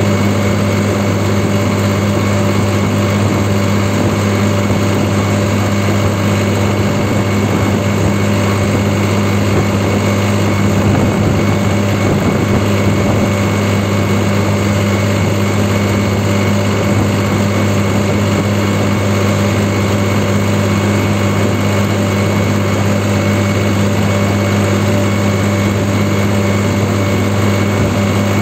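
New Holland 3630 Super Plus tractor's three-cylinder diesel engine running at a steady hand-throttle setting while the tractor drives along the road. It makes an even, unchanging drone with a strong low hum.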